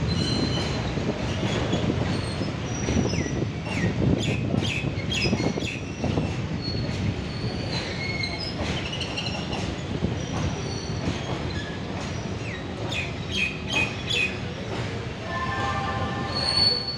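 Goods train wagons rolling past on the track: a steady rumble of steel wheels on rail, with short high wheel squeals. Two runs of clattering knocks come about four seconds in and again about thirteen seconds in.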